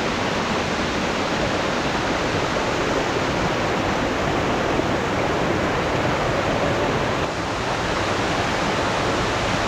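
Steady rush of a rocky forest stream tumbling over boulders and down small rock cascades.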